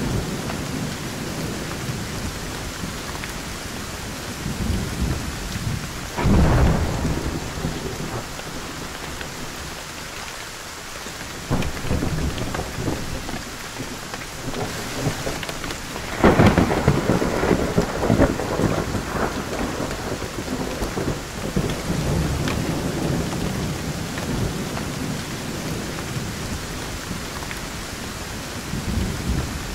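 Thunderstorm: steady rain with rolling thunder. A sudden peal comes about six seconds in, and the loudest one about sixteen seconds in, rumbling on for several seconds.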